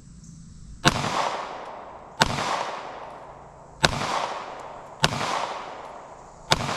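Five 9mm shots from a Glock 19 Gen 5 pistol, fired slowly about one to one and a half seconds apart. Each crack is followed by an echo that dies away.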